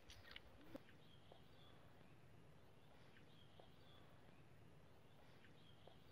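Near silence: faint outdoor ambience with a few faint, high bird chirps and a few soft clicks in the first second.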